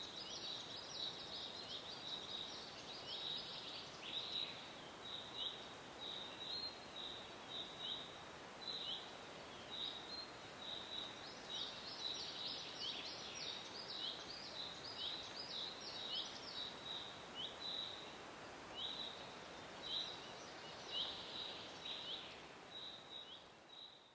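Birds chirping in a forest: many short, quick high chirps, several a second and bunched into busier flurries at times, over a steady background hiss. The sound fades out near the end.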